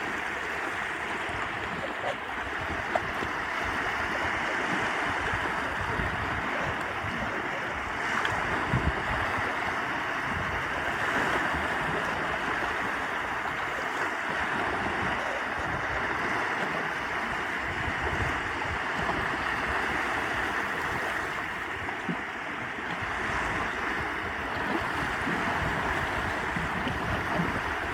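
Small lake waves washing onto the shore in a steady rush, with a few light ticks here and there.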